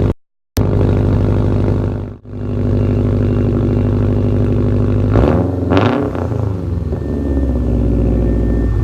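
2018 Subaru WRX STI's turbocharged 2.5-litre flat-four idling through an ETS Extreme catback exhaust with no mufflers and no resonator. It is briefly cut out near the start, and the throttle is blipped about five seconds in before the engine settles back to idle.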